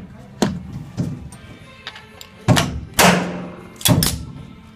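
Music from a radio, with a string of irregular sharp knocks and bangs from wood-framing work, the loudest a little past halfway through.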